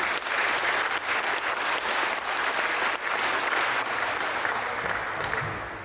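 Audience clapping, many hands at once, fading away near the end.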